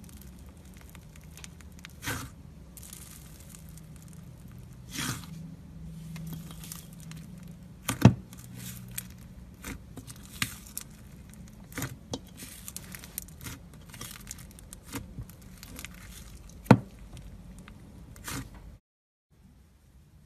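Thick, air-bubbled slime being pressed, folded and pulled by hand in a metal bowl: squishing and tearing with a steady crackle of popping air pockets. Two sharp, loud pops stand out, one about eight seconds in and one near the end. It stops suddenly shortly before the end.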